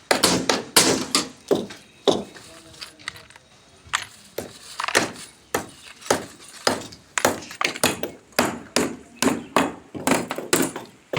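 Hammer blows on wooden roof shuttering, an irregular run of sharp knocks at about two a second.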